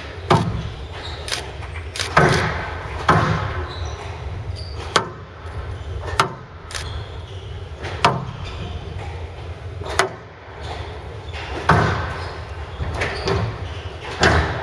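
Squash rally: the ball cracks off the rackets and the walls of a glass court about once a second, each hit echoing in a large hall.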